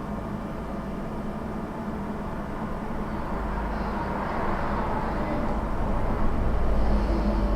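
Steady electrical hum of an ATM inside its booth, with road traffic behind it; a vehicle's rumble swells in the second half and is loudest near the end.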